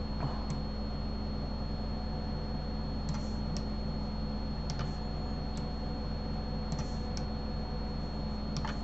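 Sparse sharp clicks of computer keyboard keys and mouse buttons, about eight spread over the stretch, over a steady low electrical hum and a faint high whine.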